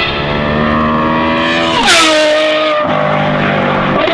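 Ferrari 812's V12 engine through a Novitec N-Largo exhaust, accelerating hard with its pitch climbing, then dropping sharply with a short crack about two seconds in as it shifts up, and pulling on.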